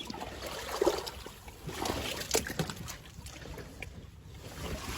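Water sloshing and splashing in uneven bursts around a fish trap cage at a fish pond's drain outlet, with scattered sharp splashes.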